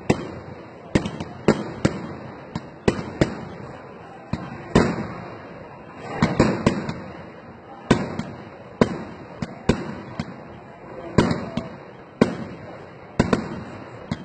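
Aerial firework shells bursting in a continuous barrage: a sharp bang about once a second, some coming in quick pairs or threes, the bigger ones trailing off in a low rumble.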